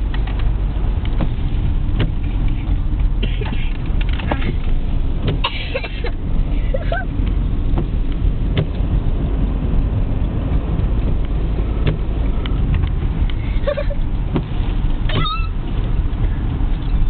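Steady road and engine rumble heard inside a moving car's cabin. A few brief clicks and short high squeaks cut through it.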